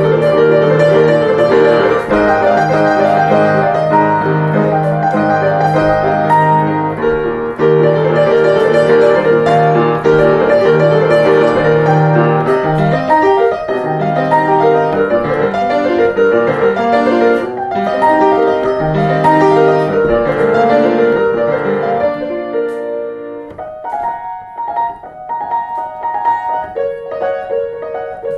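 Grand piano played with both hands in a swing-style piece written to imitate a violin and drums together: steady repeated notes in the bass under a busy melody. About three quarters through, the bass drops out and the playing turns quieter and sparser.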